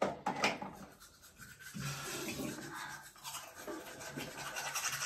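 A manual toothbrush scrubbing teeth, a fast steady brushing rhythm that starts about two seconds in. A few sharp clicks come near the start.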